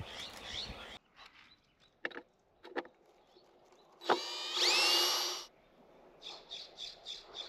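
Cordless drill running once for about a second and a half, its pitch rising as the motor spins up and then holding steady as it drives a screw through the wooden nest box into the tree.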